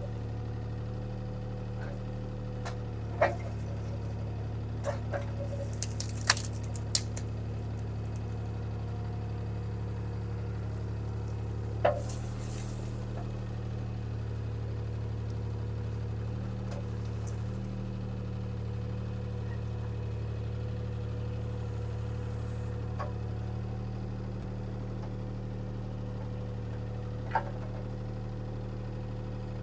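Bobcat T300 skid steer's diesel engine running steadily under work, with a few short sharp knocks and rattles now and then.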